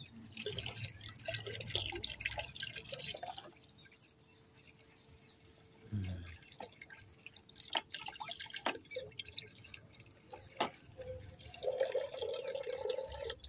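Hands lathering shampoo into a wet Labrador puppy's coat: wet rubbing and dripping water, with a low thud about six seconds in and a few sharp clicks.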